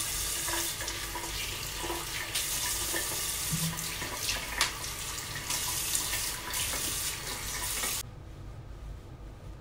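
Bathroom sink tap running while water is splashed onto the face with cupped hands to rinse off a gel face mask, with many short splashes. The running water stops about eight seconds in.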